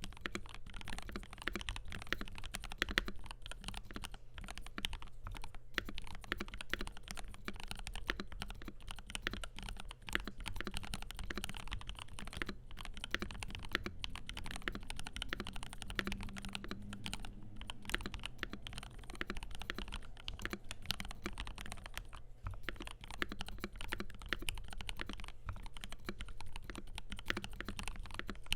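Continuous fast typing on a FiiO KB3 mechanical keyboard with lubed and filmed Gateron G Pro 3.0 Yellow linear switches, a stainless steel plate and translucent PC keycaps, giving a steady stream of key clacks.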